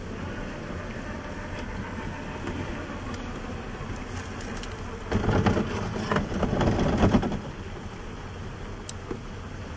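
Traxxas TRX-6 6x6 RC rock crawler working over granite: its drivetrain running under load as the tyres scrape and crunch on the rock. The grinding and scrabbling is loudest for about two seconds midway through.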